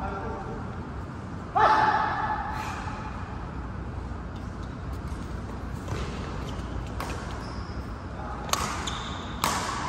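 Badminton rally: rackets smacking a shuttlecock in sharp single strokes, about four of them roughly a second apart in the second half, with a loud squeak about one and a half seconds in.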